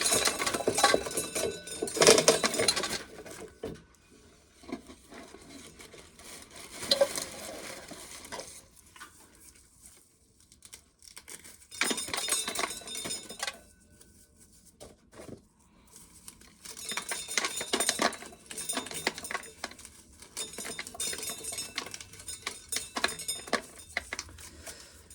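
Dried corn kernels being shelled off the cob, rattling and clicking into a tub in irregular bursts with short pauses between.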